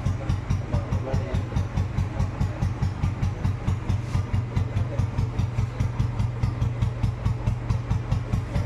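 Royal Enfield Bullet's single-cylinder four-stroke engine idling with an even beat, about four or five thumps a second.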